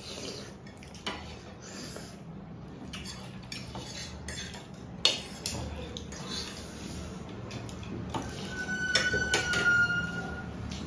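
Forks and spoons clinking and scraping against ceramic plates while eating, with a sharp clink about halfway through. Near the end comes a cluster of clinks with a brief ringing tone.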